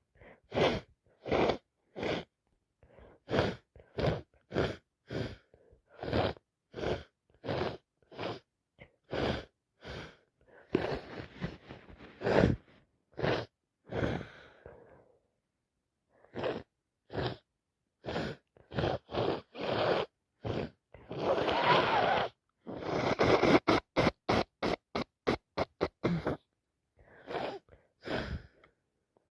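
A person with a head cold sniffing and breathing hard through a congested nose: many short sniffs, about two a second, with a few longer breaths around the middle and again about three quarters of the way through.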